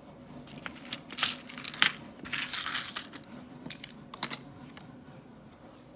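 Handling of a plastic pill organizer and its pills: a few sharp plastic clicks, the loudest a little under two seconds in, and a short rustle between about two and three seconds in.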